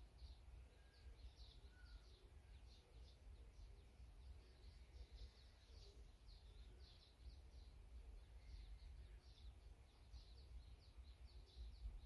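Small songbirds chirping faintly, in quick short clusters of high chirps repeated throughout, over a steady low background rumble.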